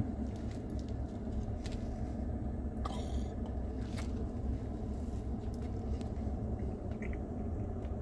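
Steady low rumble of a Ford F-150 idling with its air conditioning running, heard inside the cab, with a few faint clicks and rustles from eating a sandwich over a paper wrapper.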